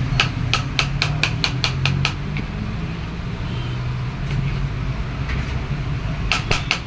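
Knife chopping papaya on a plastic cutting board: sharp knocks of the blade on the board, about three to four a second, thinning out in the middle and quickening again near the end, over a steady low hum.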